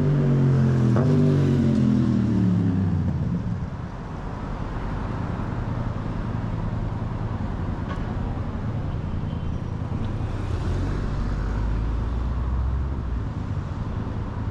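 Road traffic on a busy city street. A heavy vehicle's engine is loudest at first, its note falling in pitch and fading after about three seconds, then there is a steady wash of passing traffic with another low engine rumble near the end.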